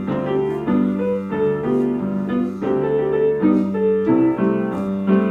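Upright piano being played: a flowing melody of single notes over held low notes.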